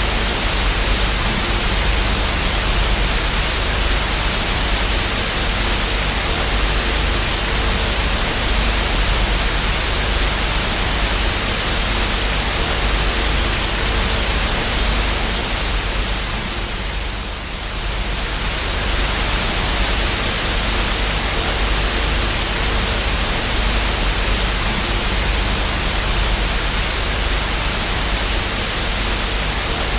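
TV static sound effect: a loud, steady hiss of white noise with a faint low hum underneath. The hiss dips briefly about seventeen seconds in, then comes back.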